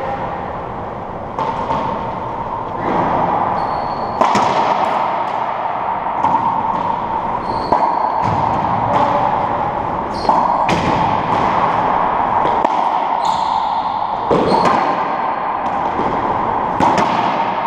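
Racquetball rally in an enclosed court: the hollow rubber ball cracks sharply off racquets and the walls about a dozen times at irregular intervals, each hit ringing in the court's echo. Sneakers squeak briefly on the hardwood floor now and then.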